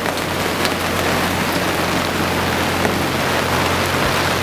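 Heavy squall rain pouring down steadily: an even hiss with scattered drops ticking on the surfaces around.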